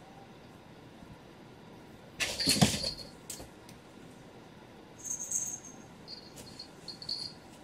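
Cat shifting in a shallow cardboard box: a loud rustle and scrape of cardboard about two seconds in, then a few short, thin scratching squeaks near the end.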